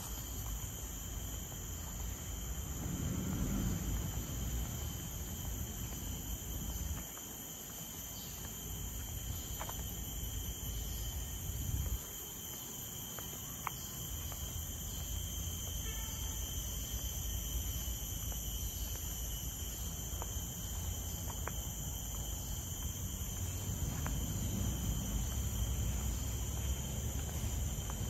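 Insects droning steadily in several high, unchanging pitches, with a low rumble underneath and a few faint clicks.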